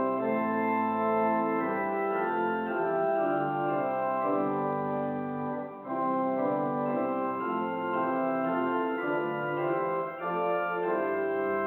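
Organ playing a postlude of held, sustained chords, with short breaks between phrases about six and ten seconds in.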